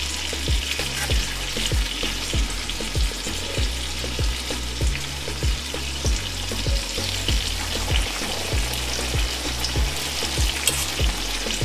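Hot oil in a cast-iron skillet frying and sizzling as a breaded pork chop is laid in, the oil bubbling up around it in the second half. A steady low beat, about two thuds a second, runs underneath.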